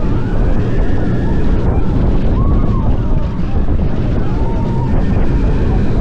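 A Mack Rides multi-launch roller coaster train running at speed through its elements, with a loud, steady rush of wind over the microphone and a low rumble from the train. Riders scream several times over it.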